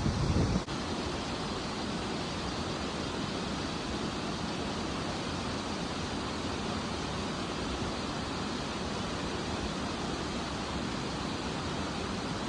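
Steady rush of water pouring over a waterfall into a pool, with wind buffeting the microphone for the first half-second.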